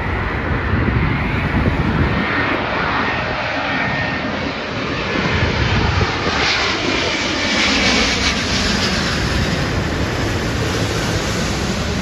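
Airbus A350 airliner's Rolls-Royce Trent XWB jet engines passing low overhead on landing approach with the gear down: a loud, steady jet roar with a whine, parts of which slide down in pitch as the plane goes over.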